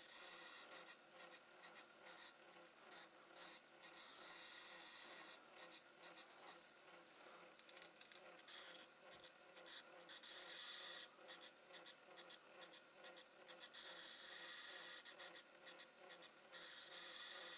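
Repeated scratchy rubbing strokes, each about a second long and a few seconds apart, with small clicks between them, from hand work on a micro lathe.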